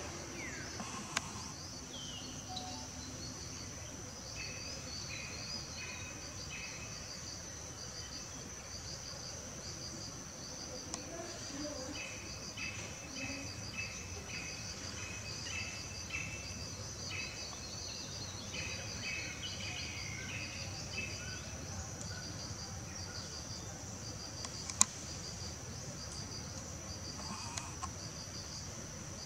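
Insects trilling steadily: a continuous high drone with a rhythmic pulsing of about two pulses a second, joined by a lower chirping in two bouts, the longer one in the middle. A single sharp click stands out about 25 seconds in.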